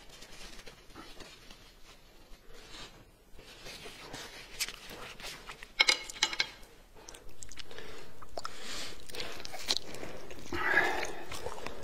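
A person eating: chewing and biting into food, ending with a bite into a fried chicken leg, with scattered sharp clicks and a cluster of louder clicks about six seconds in. A steady hiss comes in suddenly about seven seconds in.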